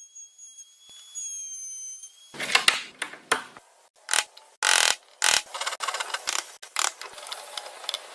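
Wooden workpieces handled and fitted together: after a faint high whine, an uneven run of sharp knocks, clicks and short scrapes starts about two seconds in.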